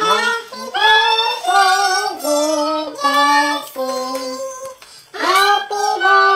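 A young child singing, holding one note after another at a steady pitch, with a short break about five seconds in.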